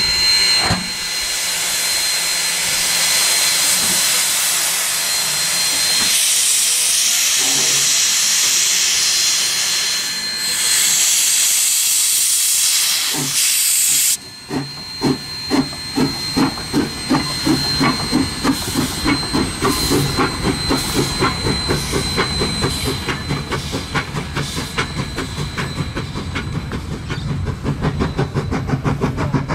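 Queensland Rail C17 steam locomotive 974 hissing steam steadily. About halfway through the hiss stops abruptly and the locomotive starts away with its cylinder cocks open, its exhaust chuffs beginning slowly and quickening as it gathers speed.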